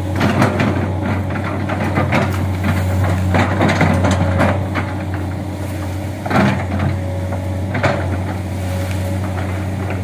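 Komatsu hydraulic excavator's diesel engine running steadily while its bucket pushes through undergrowth, with crackling and snapping of brush and small branches. The cracking is thickest over the first few seconds, then comes as single snaps about six and eight seconds in.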